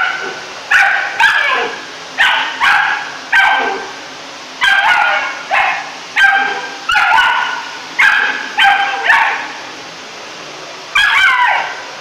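Rough collie puppy barking repeatedly in high, shrill yapping barks, often in quick pairs, at a vacuum cleaner nozzle, with a short pause about two-thirds of the way through. A vacuum cleaner runs steadily underneath.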